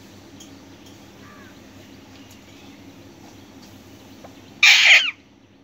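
An Alexandrine parakeet gives a single loud, harsh squawk lasting about half a second, near the end; before it there are only a few faint chirps over a steady low background hum.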